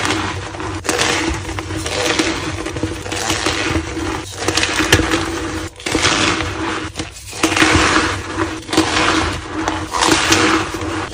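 Soft, reformed white gym chalk being crushed: a continuous run of crumbly, powdery crunches with a few brief pauses.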